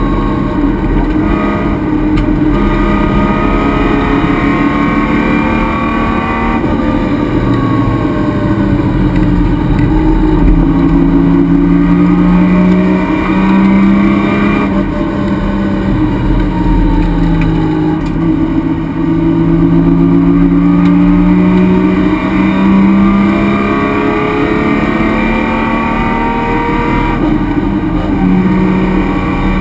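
Race car engine under load, heard from inside the stripped, roll-caged cockpit, its pitch rising and falling with throttle and gear changes at racing speed.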